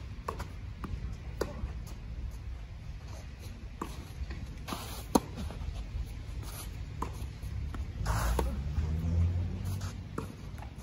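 Tennis rally on a clay court: sharp pops of racket strings striking the ball and the ball bouncing, one every second or two, the loudest hit about five seconds in. A short scuffing rush, like shoes sliding on clay, comes about eight seconds in.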